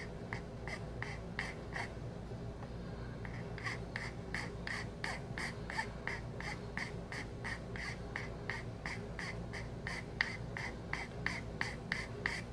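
Flat metal hand file rasping across a briar pipe bowl in short strokes, about three a second, each stroke pushed in one direction and the file lifted on the way back. The strokes stop for over a second about two seconds in, then carry on.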